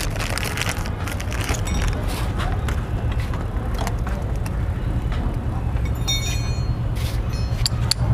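Steady low rumble of motor vehicles running nearby, with light metallic clinks about six seconds in and again near the end.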